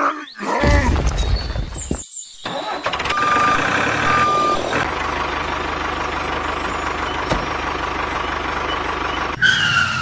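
Tractor engine sound effect running steadily, with two short beeps about three and four seconds in. A loud, deep sound fills the first two seconds before it.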